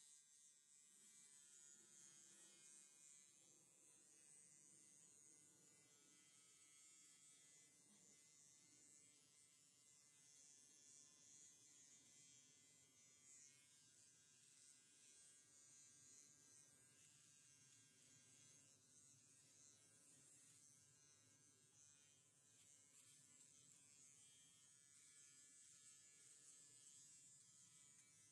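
Faint, steady buzz of a small handheld electric clipper trimming a horse's muzzle whiskers.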